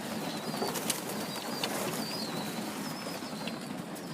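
A flock of birds at feed making low calls, with a few brief clicks and flutters.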